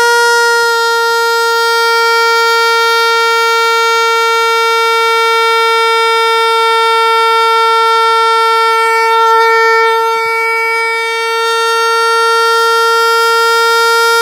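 Green plastic trumpet horn blown by the air escaping from a balloon fitted over its mouthpiece. It gives one continuous, very loud blast at a single steady pitch, like a train horn, as the balloon deflates.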